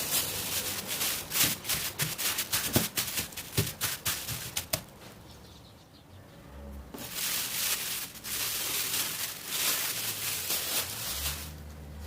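Kitchen handling sounds while food is being prepared: a quick run of clicks and taps, a short lull, then several seconds of rustling, brushing noise.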